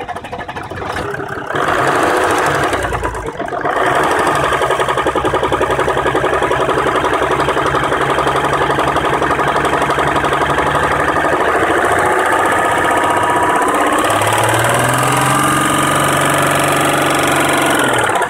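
Jeep Grand Cherokee WK's 3.0 CRD V6 diesel engine running with a knock. Its speed rises about fourteen seconds in and is held there.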